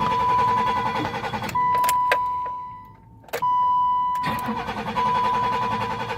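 1986 BMW 325's 2.7-litre straight-six being cranked over by the starter with a steady whine and a fast rhythmic pulse, in two bursts with a short break about three seconds in. The engine does not fire: a hard start after three weeks sitting.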